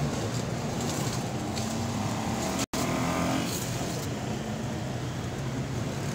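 Steady engine drone with road traffic going by. The sound breaks off for an instant about halfway through.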